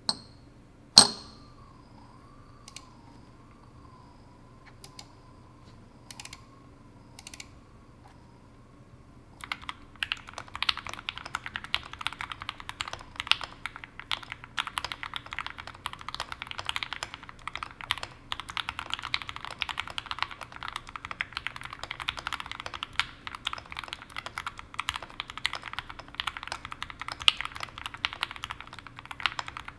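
Fast, continuous typing on a Sneakbox AVA Alice-layout custom mechanical keyboard. The board has Tangerine v2 linear switches with PE stems, an aluminium plate, GMK keycaps, and PE-sheet and shelf-liner dampening. The typing starts about a third of the way in, after one sharp click and a few scattered single clicks over a faint wavering tone.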